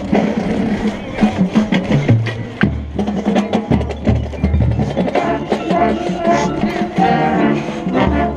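Marching band music: drum and percussion hits over low bass notes, with held pitched notes building up about five seconds in.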